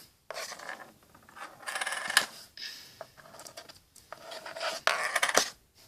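Plastic fidget spinner parts being handled close to the microphone: several short spells of rubbing and scraping, with two sharp clicks, about two seconds in and near the end.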